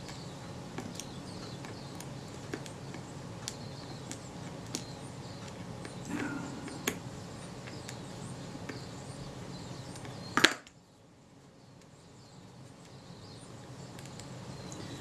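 Small tweezers and a cotton bud working over tiny brass lens wedges on a cutting mat: faint scattered ticks and clicks over a steady low hum. A sharp click comes about ten and a half seconds in, and the hum stops with it.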